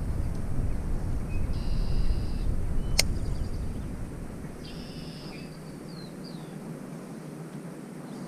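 A bird calling twice in short buzzy phrases, with one sharp click between the calls. Wind rumbling on the microphone fades out about halfway through.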